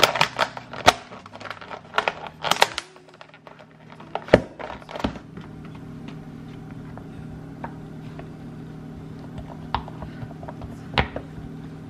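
Plastic food containers and lids handled on a countertop: a quick run of clicks, taps and knocks for the first few seconds, the loudest about four seconds in, then only a few scattered taps as a silicone plate lid is pressed on, over a steady low hum.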